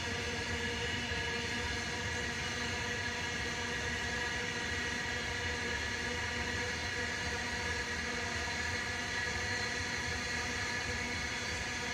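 Freight train of BCNAHL open wagons, hauled by a WAG-9HC electric locomotive, rolling along the track: a steady rumble with a continuous hum of several tones over it.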